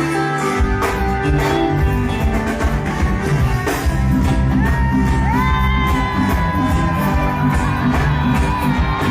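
A band playing live music with heavy bass and a steady beat that comes in about half a second in. A high melody line slides between held notes above it.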